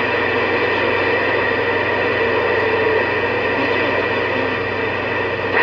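CB radio speaker putting out steady static hiss with a low hum underneath, with no strong signal coming in.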